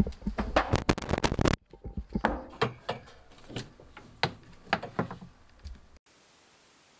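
Irregular clicks, knocks and rustling of handling as the washer's power cord is pulled from the wall outlet, stopping abruptly about six seconds in.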